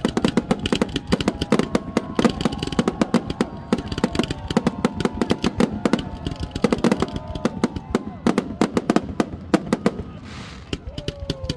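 Fireworks shells bursting in a rapid barrage, many bangs a second, with crowd voices rising over them. The bangs ease briefly near the end.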